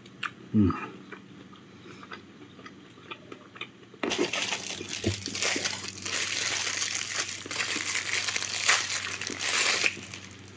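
Food packaging being crinkled and handled, a dense crackling that starts about four seconds in and runs for about six seconds, after a low thump and a few light clicks.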